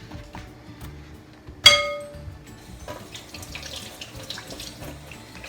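A single sharp metallic clang about a second and a half in that rings briefly, kitchenware knocked while graham-crumb crust mix is moved into the baking pan, followed by light clatter. Soft background music runs underneath.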